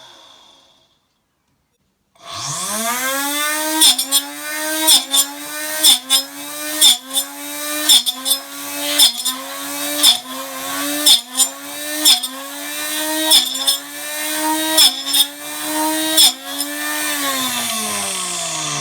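Homemade table saw's motor spinning up, then dipping in pitch with a sharp crack about once a second for about twelve seconds, and spinning down near the end.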